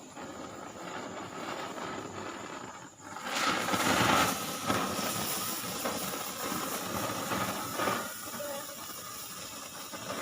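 Cock Brand pencil firework burning, a steady hiss of spraying sparks that grows much louder about three seconds in and keeps going with small swells.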